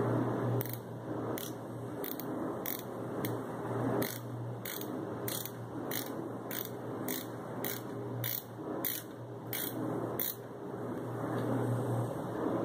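A screwdriver driving the mounting screws of a computer power supply into the case, giving a run of sharp clicks, about two a second, that stops near the end. A steady low hum runs underneath.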